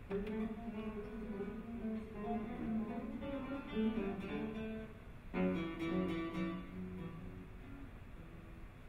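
Two classical guitars playing together: plucked notes ringing over each other, with a sharp loud attack just after the start and another about five seconds in, then dying down.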